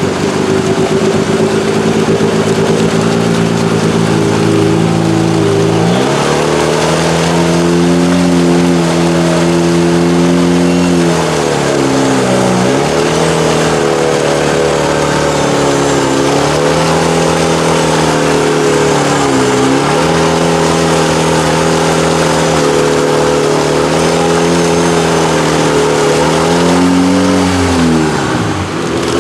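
Suzuki Samurai mud bogger's Honda-swapped engine running hard at high revs under load, its pitch climbing about six seconds in, then dropping and picking back up three times, the last drop near the end.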